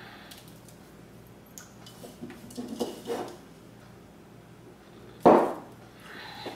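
A hand rustling and scraping through material in a plastic mixing bowl for about a second, then a single sharp knock, the loudest sound, about five seconds in.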